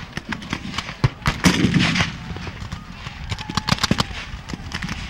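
Black-powder musket fire from a Civil War reenactment battle line: a ragged crackle of many scattered shots, heaviest about a second in.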